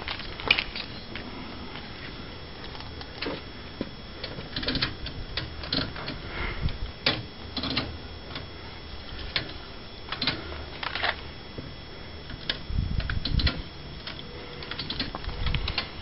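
Irregular light clicks and ticks, a few each second, over a faint steady background, with a short run of dull low thumps about thirteen seconds in.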